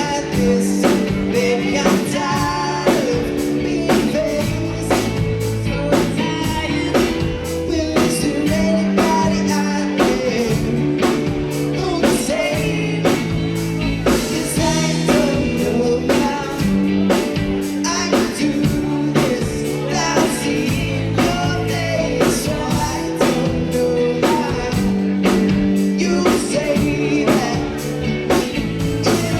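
Live rock band playing a song: a singer over drums keeping a steady beat, with bass and guitar.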